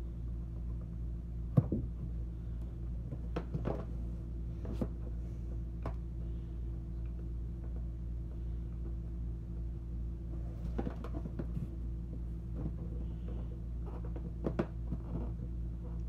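Scattered light knocks and clicks of hands working a plastic water-line fitting onto an RV toilet's water valve, the sharpest about a second and a half in. Under them a steady low hum.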